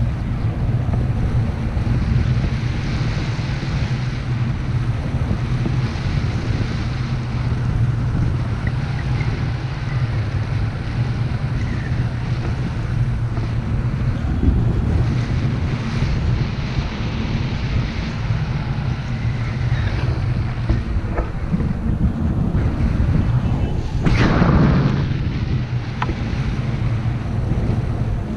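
Airflow rushing over the microphone in flight under a tandem paraglider: a steady low rumbling rush, with a brief louder gust a few seconds before the end.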